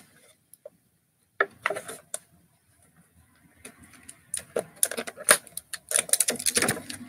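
Stiff clear plastic toy packaging crackling and clicking as hands twist and pull at it, working a toy figure loose from a plastic tie-down that won't release. A few sharp clicks at first, then a denser run of crinkling from about four seconds in.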